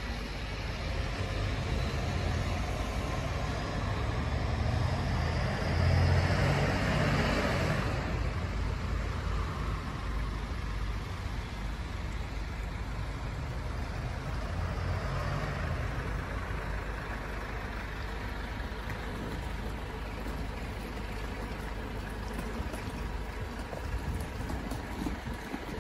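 Alexander Dennis Enviro400 MMC double-decker bus driving away on a wet road: engine and tyre noise swell to their loudest about six to eight seconds in, then drop off to a steady distant rumble and hiss.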